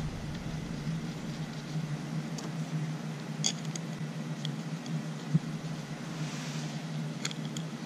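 A few faint, short clicks of metal Torx screws being handled and set into the cover of a Volvo brake vacuum pump by gloved hands, over a steady low hum.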